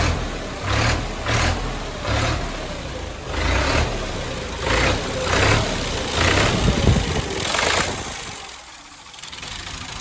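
Rebuilt Fiat 480 tractor's diesel engine running, with loud uneven surges about once or twice a second that die down near the end.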